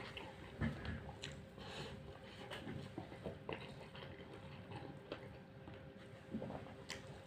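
Faint chewing of chicken biryani eaten by hand, with scattered small clicks and crunches of chicken bone in the mouth. A faint steady hum runs underneath.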